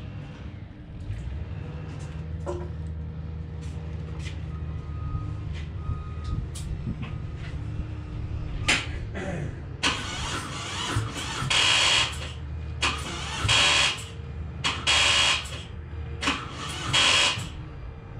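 A steady low hum. About halfway in come repeated short bursts of rattling chatter from a 2018 Harley-Davidson Breakout as it is tried on the starter, and the engine never catches: the battery is still too flat to turn it over.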